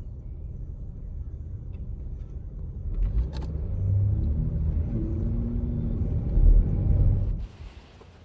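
Dodge Durango's engine running with a low rumble that grows louder about three seconds in, then cuts off suddenly near the end.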